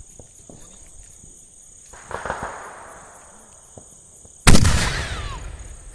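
A firecracker bursting with one loud, sharp bang about four and a half seconds in, dying away over a second or so. A fainter burst comes about two seconds in.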